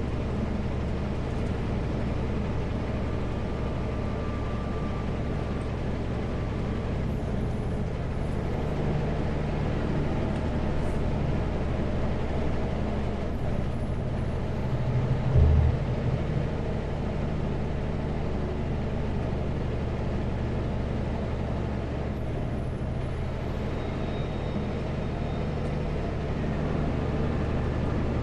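Kenworth W900L semi truck's diesel engine running steadily at road speed, a low drone with tyre noise from the wet road. There is a brief louder thump about fifteen seconds in.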